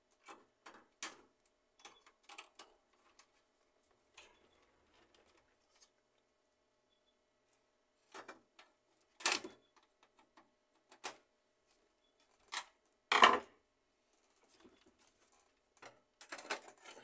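Scattered clicks and knocks of a laser printer's plastic covers and metal frame being handled and fitted together, with two louder knocks about nine and thirteen seconds in and a few small clatters near the end.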